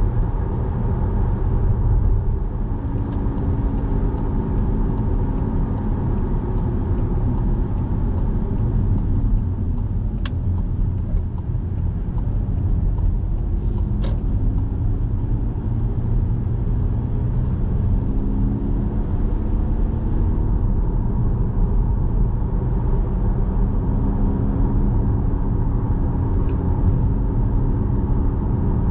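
A car running on a wet road, heard from inside: steady tyre and engine rumble, with the engine note rising and falling several times. A run of quick ticks, about three a second, comes in a few seconds in and stops about halfway through, with two sharp clicks in between.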